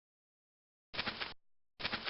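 Silence, then two short noisy sound-effect bursts, the first about a second in and the second just before the end.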